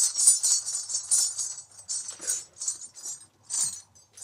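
Salangai (dancer's ankle bells) jingling in a run of shakes that start dense, grow sparser and die away: a jingle brought down from loud to a fade-out.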